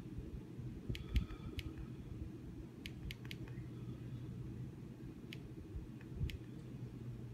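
Sharp clicks of a TV remote's buttons being pressed, about eight of them, some in quick pairs, over a low steady hum.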